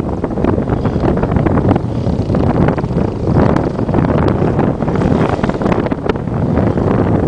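Wind buffeting the microphone, with a four-wheeler ATV's engine running off in the distance.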